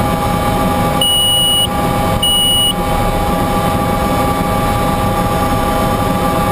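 Bell 206 JetRanger's Allison 250 turboshaft engine and rotors running steadily on the ground: a constant whine over a low rumble. Two short, high electronic beeps, each about half a second long, sound about a second in and again about two seconds in.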